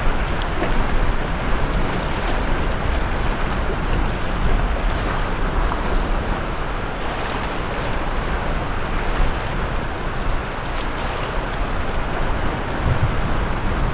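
Sea waves washing steadily onto the shore, with wind rumbling on the microphone.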